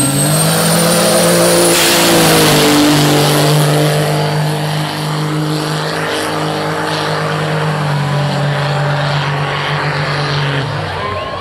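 Diesel truck engine revved up and held near full throttle, a steady drone that dies away near the end, with a thin high whistle in the first couple of seconds.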